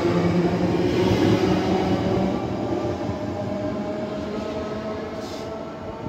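Belgian SNCB electric multiple unit moving off along the platform, its traction motors whining steadily over wheel and rail rumble and fading away after about two seconds.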